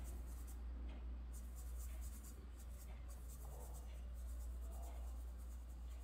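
A paintbrush working oil paint on a plastic-covered palette: faint, repeated brushing and scraping strokes over a low steady hum.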